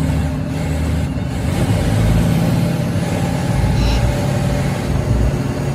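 Bus's diesel engine running steadily at highway speed, heard from inside the driver's cab along with road noise; it grows slightly louder about two seconds in.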